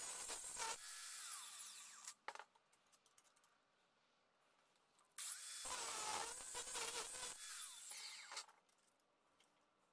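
Cordless angle grinder with a cutting disc slicing into a thin metal disc, then winding down. After a few seconds' pause it runs again for about two seconds and winds down a second time.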